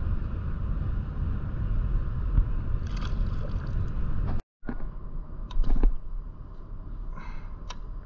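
A kayak being paddled: water swishing with the paddle strokes over a steady low rumble. After a sudden dropout about four and a half seconds in, there are a few sharp knocks and another paddle splash.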